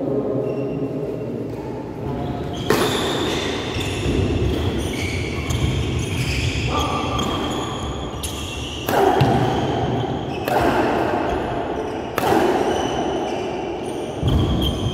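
Badminton rally in a large echoing hall: sharp racket strokes on the shuttlecock about every couple of seconds from about three seconds in, with shoes squeaking on the court between them.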